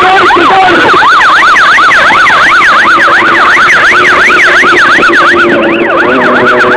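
Police siren in the fast yelp pattern, its pitch sweeping up and down about four times a second and loud throughout. Near the end a steady lower drone of several tones joins it.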